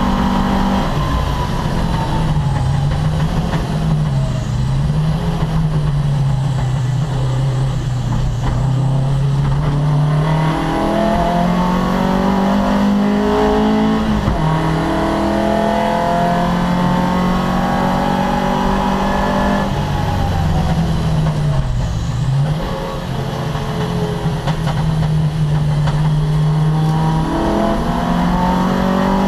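Opel Kadett C race car's engine running hard, its revs climbing and falling through gear changes. The pitch drops sharply and climbs back twice, about four seconds in and again about 22 seconds in.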